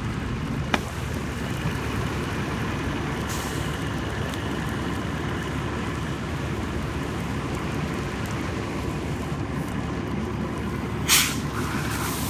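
Steady low mechanical rumble with a sharp burst of hiss about a second before the end.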